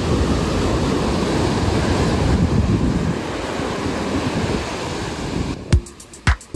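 Sea waves washing up on the beach with wind blowing across the microphone. About five and a half seconds in this cuts to background music with a heavy beat, about two thumps a second.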